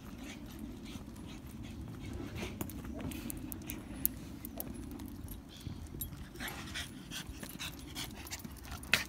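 Dogs walking on leads over a tarmac road: irregular ticks of claws and footsteps, with a dog panting, over a steady low rumble. A sharp click about four seconds in and a louder one near the end.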